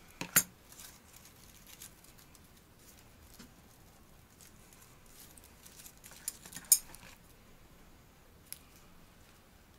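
Bonsai pruning scissors snipping shoots on a Korean hornbeam bonsai, cutting back overgrown water sprouts. There are a few sharp snips, one just after the start and the loudest about two-thirds of the way through, with faint handling noise in between.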